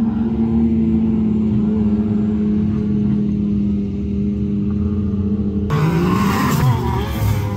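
Off-road buggy engines running hard at a steady, high drone as they climb a sand dune; about two-thirds of the way through, the sound cuts abruptly to a closer engine revving, its pitch rising and falling.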